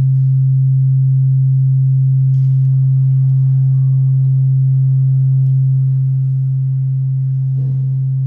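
A loud, steady low hum: one pure tone that holds unchanged, easing slightly in level about six seconds in.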